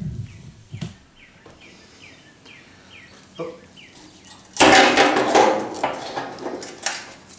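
Air-powered spot sandblaster firing 80-grit black sand through a plug-weld hole in sheet metal: a harsh hiss of air and grit starts about four and a half seconds in and lasts a couple of seconds, cleaning the hole to bare metal for welding. A few light knocks come before it.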